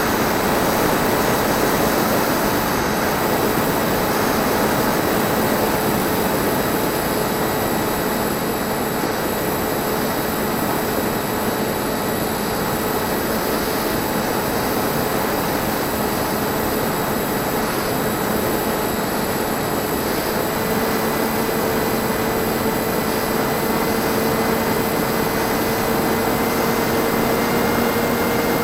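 Bixler 1.1 RC plane's NTM 2200kv electric motor and propeller running steadily in flight, a steady whine over the rush of air. The pitch steps up slightly about two-thirds of the way through and again near the end.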